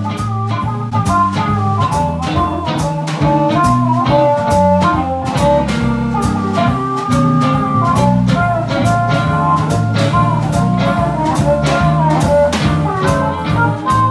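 A live blues band playing with a steady drum beat: electric guitar, harmonica and drums.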